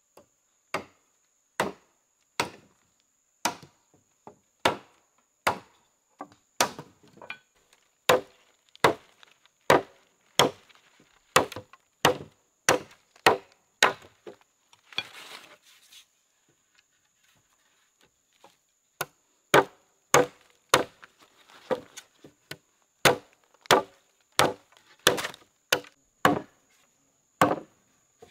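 Wood being chopped with a bladed tool: sharp, regular strokes at one to two a second. A brief scraping rustle comes about fifteen seconds in, then a pause of a few seconds before the chopping starts again.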